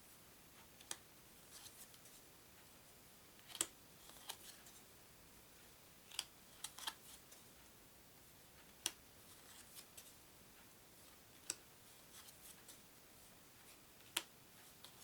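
Stiff playing cards being handled and set down one at a time: faint, irregular sharp clicks and taps every second or so in a quiet room.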